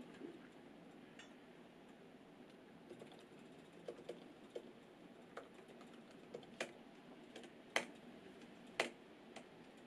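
Slow, scattered key presses on a MacBook laptop keyboard: faint soft clicks starting about three seconds in, with two louder taps near the end.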